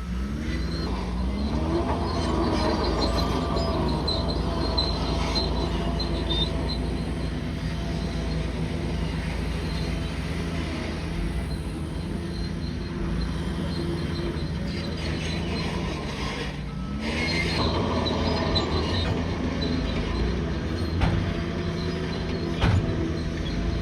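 Bulldozer's diesel engine running under load, its pitch rising twice, about a second in and again about three quarters of the way through. Metallic squealing and a few clanks from the steel tracks come over it.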